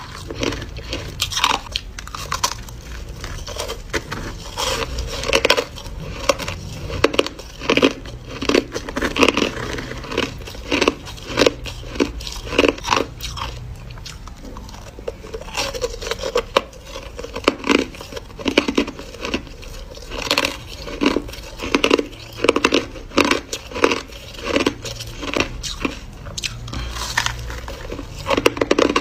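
Crushed ice being bitten and chewed close to the microphone: a steady run of crisp crunches, a few a second, in uneven clusters.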